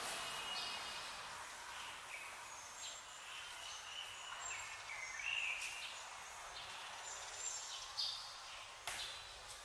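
Outdoor street ambience: a steady background hiss with small birds chirping, short high calls repeating all through. A couple of faint sharp knocks come near the end.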